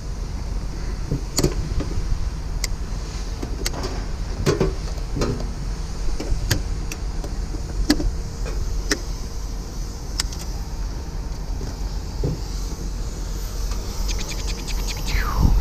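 Scrap metal being handled: scattered sharp clinks and knocks, a dozen or more at uneven intervals, over a steady low rumble and hum.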